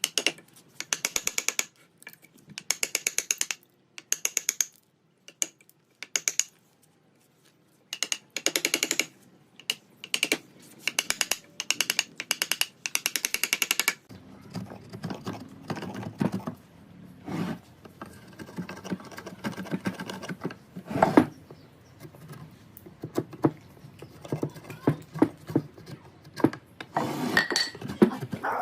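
Bursts of very rapid mechanical clicking, each under a second long, repeated with short pauses. About halfway through these give way to irregular knocks and taps of woodworking.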